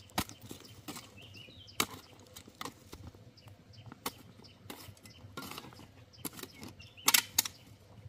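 Irregular sharp knocks or taps, roughly one a second, with a quick cluster of louder ones about seven seconds in.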